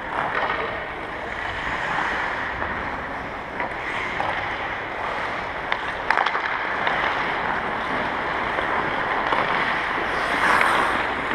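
Ice hockey practice on the rink: a steady scraping hiss of skates on the ice, with a few sharp clacks of sticks and pucks near the middle.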